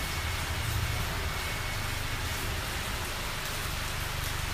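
Steady rushing hiss with a low hum beneath it, even and unbroken throughout.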